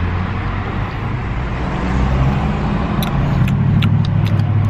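Car running, a steady low hum heard inside the cabin, with a handful of sharp clicks in the last second and a half.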